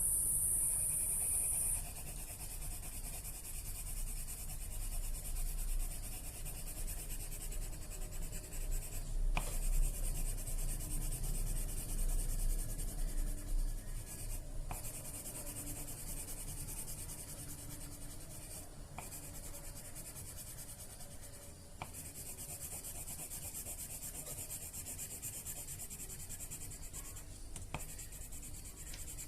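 Pen or pencil scratching on paper as someone writes or draws, with a few faint taps along the way.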